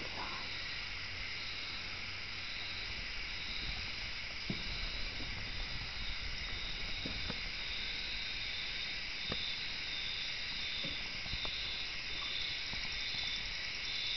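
Steady chorus of rainforest insects, with a high buzz that pulses in a repeating rhythm. Occasional faint clicks and knocks can be heard under it.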